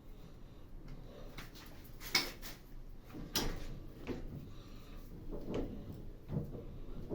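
A few scattered knocks and clicks of hard objects being handled, spaced a second or so apart, the loudest about two seconds in.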